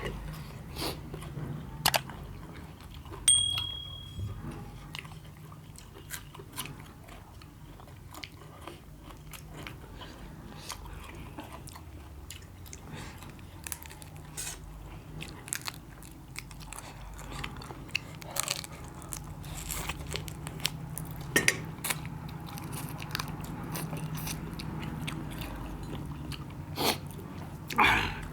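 Close-up eating sounds: a person biting, crunching and chewing crab and noodles, with scattered clicks from the crab's hard shell. About three seconds in there is a sharp clink with a brief ringing tone.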